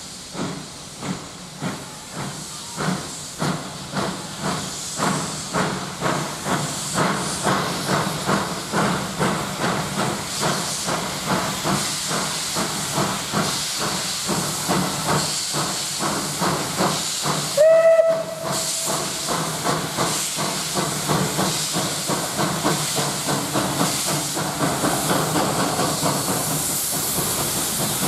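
ČSD class 423.0 tank steam locomotive pulling away. Its exhaust chuffs start at about one and a half a second and speed up into a fast, even beat under loud steam hissing from the open cylinder cocks. About two-thirds of the way through, one short, loud steam-whistle blast sounds.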